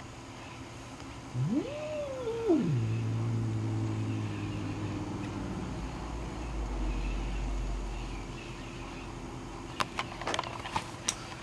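A domestic cat yowls once, its pitch rising sharply, holding and then falling, and runs straight into a low, steady growl lasting a few seconds. A few sharp clicks come near the end.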